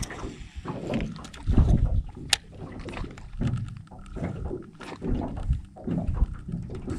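Gusts of wind on the microphone and small waves slapping against a boat's hull, with one sharp click about two and a half seconds in.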